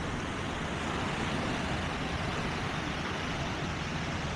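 Steady rushing wash of surf with wind rumbling on the microphone.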